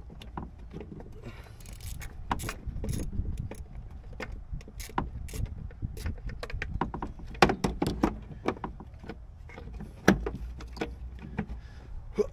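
Irregular metallic clicks and clinks of bolts and hand tools being handled as the bolts are started by hand, with a couple of louder knocks about seven and ten seconds in.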